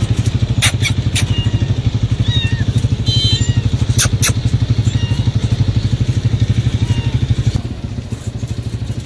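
An engine idling with a steady, rapid low pulse, easing slightly quieter about three-quarters of the way in, with a few sharp clicks over it.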